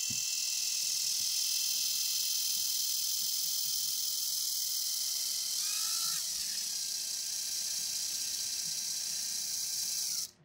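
Panasonic cordless impact driver running steadily in reverse, turning a spring balancer's tension adjuster counterclockwise to unwind the spring and release the cable tension. Its whine shifts in pitch about six seconds in and cuts off suddenly just after ten seconds.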